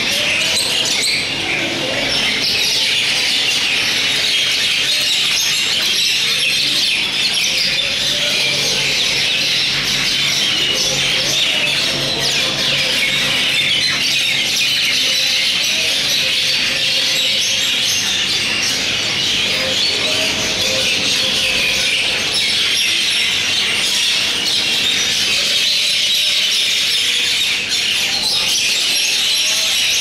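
Myna birds chattering: a dense, continuous twittering of short calls that keeps going without a break.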